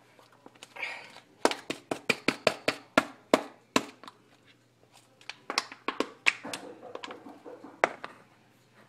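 Crumpled aluminium soda can being squeezed and shaken upside down, trying to get frozen slush out: a quick run of sharp clicks and crinkles, about five a second, for a couple of seconds, then a few scattered taps.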